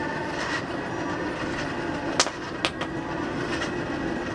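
Hand-cranked forge blower running steadily, a whirring rattle as it feeds air into the fire to get it going. Two sharp clicks come a little after two seconds in, about half a second apart.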